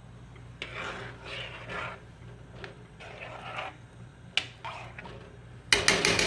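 A spoon scraping ghee from a container, then several quick sharp clinks of the spoon knocked against the pot near the end.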